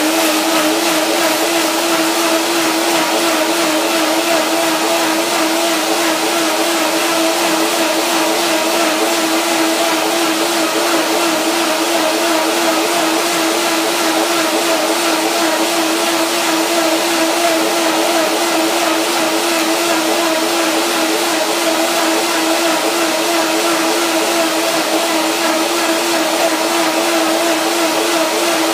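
Countertop jug blender running at high speed, blending unsoaked peanuts with banana, spices and water into a curry peanut cream. The motor holds one steady, loud pitch throughout.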